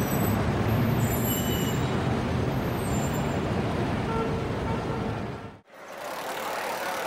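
City street traffic noise, a steady rumble of road vehicles. It cuts off abruptly about five and a half seconds in and gives way to a thinner, hissier background.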